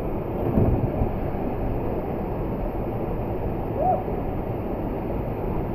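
Steady rushing of a waterfall pouring into its plunge pool, with a low thump about half a second in and a short shout near the end.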